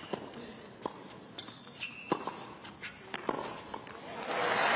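Tennis rally on a hard court: racquets strike the ball about once a second, with short rubber-sole squeaks on the court surface between shots. Near the end the point finishes and crowd applause and cheering swell up.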